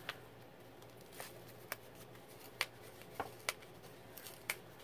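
Faint paper ticks and rustles, about half a dozen short clicks spread out, as fingers pick at and peel the sticker seal on a small kraft-paper stamp package.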